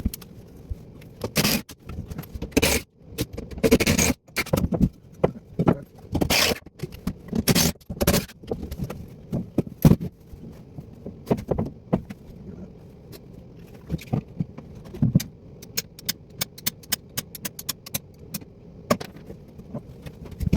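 Scraping, knocking and clattering of plumbing pipe and bracket hardware being worked loose and handled by hand. The scraping and knocks are busiest in the first half; later come sparser knocks and a quick run of light clicks.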